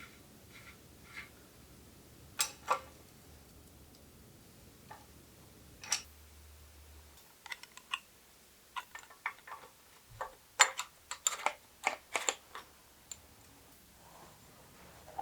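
Scattered light clicks and taps of tools and bicycle parts being handled during a bike build, two sharp ones a few seconds in and a busier run of clicks in the second half.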